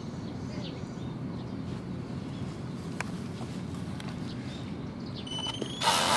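Steady low outdoor background rumble with a faint click about halfway. Near the end the Raven38iV ornithopter's battery-powered electric motor whines up in pitch, then runs loudly with a buzz as its wings start flapping.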